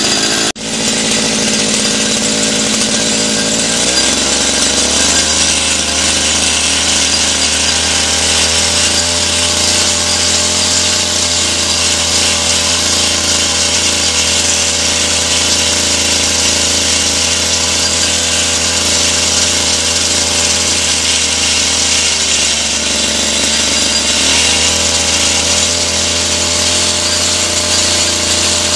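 Small 52 cc two-stroke outboard motor running steadily, with a short break about half a second in and a shift in engine speed about four seconds in and again near the end.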